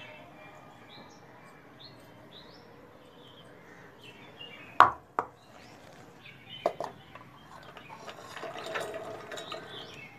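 A stainless steel bowl clanks sharply once, about halfway through, and then clinks a few times. Near the end comes a rustling patter as pomegranate arils are poured from the bowl into a mixer jar. Faint bird chirps sound in the background early on.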